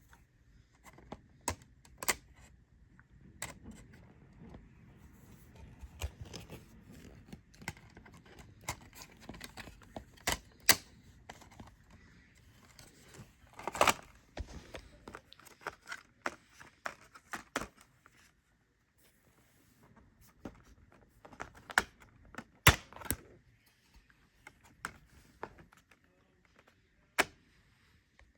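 Irregular clicks, taps and sharp knocks with rustling between them: plastic DVD cases and packaging being handled and opened.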